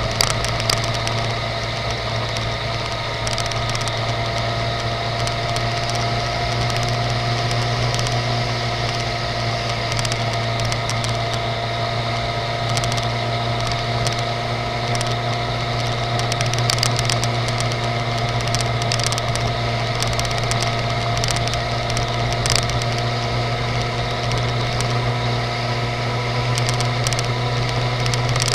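Suzuki GSX-R750 K5's inline-four engine running steadily as the motorcycle cruises along, its note holding an almost constant pitch.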